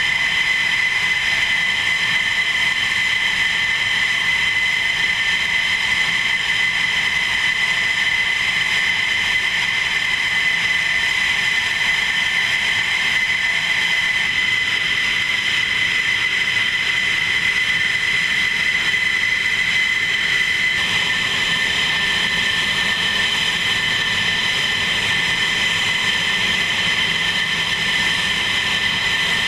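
Jet engines of a formation of F-16 fighters taxiing, a steady loud high-pitched whine over a rushing noise.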